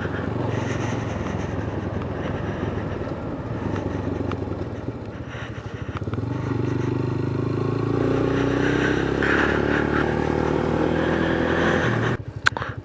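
Motorcycle engine running while under way, with road and wind noise. It eases off about five seconds in, then pulls again with a slowly rising pitch, and cuts away briefly near the end.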